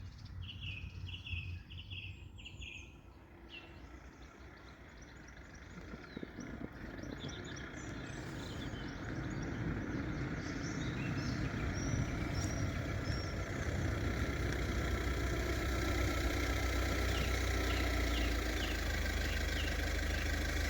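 An Iarnród Éireann 2600 class diesel railcar approaching, its low engine and wheel rumble growing steadily louder from about six seconds in. Small birds chirp now and then over it.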